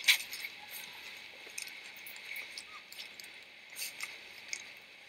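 Footsteps on a sidewalk dusted with light fresh snow: a few soft, irregular crunches and clicks over a faint steady hiss.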